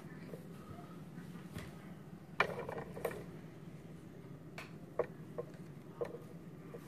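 Light clicks and taps from small pieces of dollhouse siding and tools being handled, over a low steady hum. The loudest tap is about two and a half seconds in, and a few more follow at irregular intervals.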